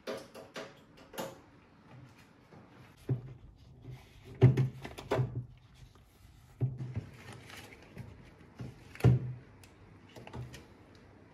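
Metal underside panel of a kitchen range hood knocking and rattling as it is worked at by hand, a part that is stuck and hard to disconnect. Irregular clicks and knocks, the loudest about four and a half and nine seconds in.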